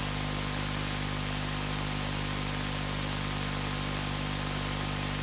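Steady static hiss with a low electrical hum under it.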